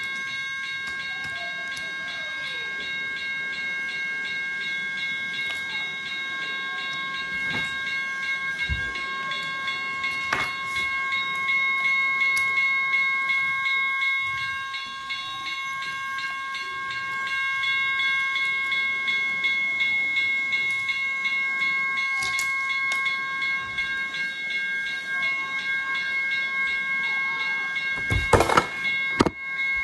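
Electronic sound effects from a toy railroad crossing: a steady electronic tone with a rapid pulsing ring over it, like a toy train and crossing signal. A few loud knocks near the end, from hands handling the toy or the phone.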